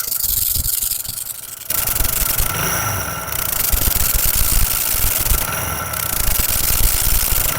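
Hero Honda Splendor Plus single-cylinder engine idling with its magneto cover off, with a rasping 'charchar' scrape from the flywheel magneto. One of the magnets inside the flywheel rotor has come unstuck and rubs at low revs; the noise goes away when throttle is given. The running gets louder about two seconds in.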